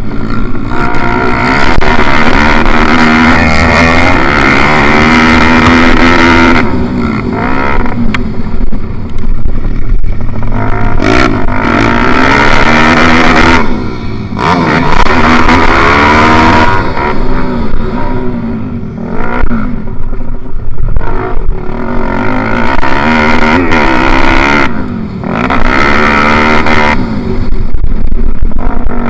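Pitbike's small single-cylinder four-stroke engine racing hard close to the microphone, its revs climbing and falling again and again through gear changes, with brief lulls off the throttle.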